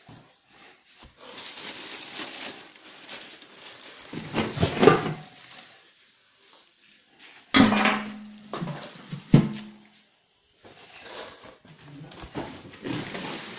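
Cardboard box and plastic wrapping of a smoker's parts being handled, rustling on and off with several knocks, the loudest about halfway. A short low steady tone sounds for about two seconds after one of the knocks.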